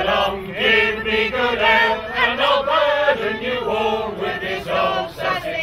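A mixed group of men's and women's voices singing a song together.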